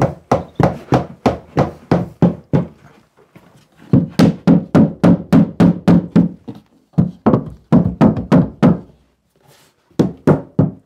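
Rubber mallet striking the wooden curtail step of a staircase in four bursts of quick thuds, about four a second, knocking the joints home.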